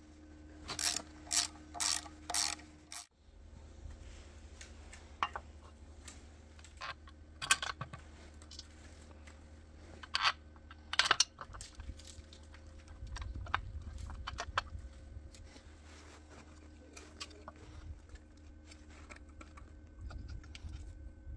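A ratchet wrench clicking in a few sharp strokes about half a second apart as screws on an electric motor's terminal box are turned, followed by scattered lighter clicks and knocks of screws and a plastic terminal box being handled.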